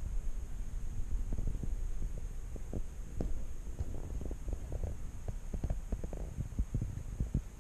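KTM 1290 Super Duke R's V-twin idling through an Austin Racing RS22 exhaust: a low, uneven throb with irregular thumps.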